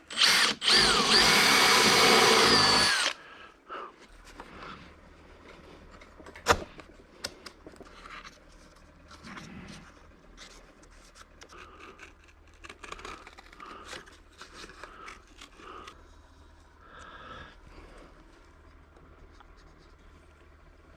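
Power drill running for about three seconds as it bores a hole, its motor whine dipping in pitch under load and picking back up, then stopping. Afterwards only faint clicks and handling, with one sharp knock.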